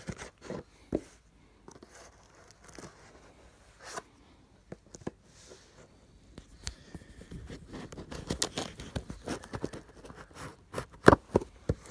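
Cardboard box and its packing tape being cut and pried open with a small folding blade: scattered scrapes, clicks and tearing, getting busier in the second half, with a few sharp knocks near the end.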